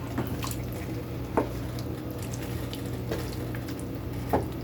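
Thick chorizo chili sauce sizzling in a pot as it is stirred, a spoon clicking against the pot a few times, over a steady low hum.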